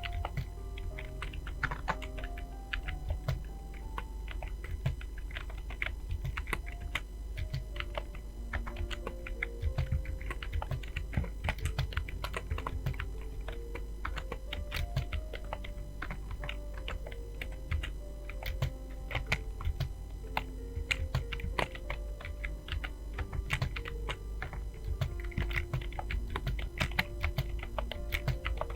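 Fast, continuous typing on a computer keyboard: many rapid, irregular keystroke clicks, over background music with a simple stepping melody.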